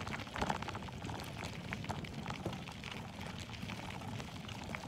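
Bicycle rolling fast over a dirt-and-gravel road: a steady low rumble from the tyres, with scattered crunches and rattling ticks throughout.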